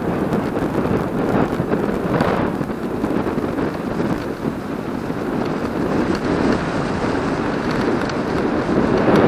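Wind rushing over the microphone of a camera on a moving vehicle, with road noise: a loud, steady roar that swells slightly near the end.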